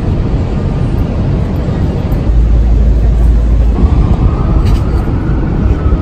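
Busy city street ambience: a steady wash of traffic noise, with wind rumbling on the microphone in gusts. A faint whine rises and then falls over the last couple of seconds.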